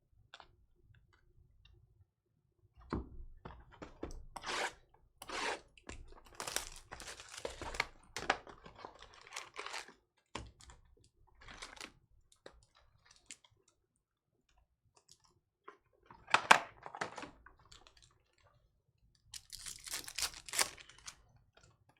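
Trading-card pack wrappers being torn open and crinkled in irregular bursts, with cards being handled between the rips.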